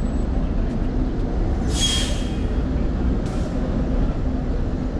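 Low steady rumble of a city bus and street traffic, with a short sharp hiss of released air from the bus's air brakes about two seconds in and a fainter hiss a second and a half later.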